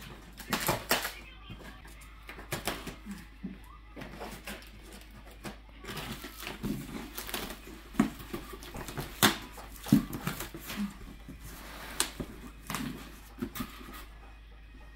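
Cardboard shipping box of a flat-pack bookshelf being opened and its contents handled: scattered rustling and scraping with sharp knocks now and then.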